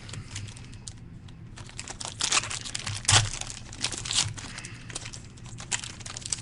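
Wrapper of a trading-card pack crinkling and tearing in irregular crackles as it is opened and the cards are handled, over a low steady hum.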